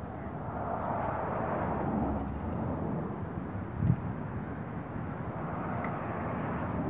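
Steady outdoor background rush by the sea, with a brief low thump about four seconds in.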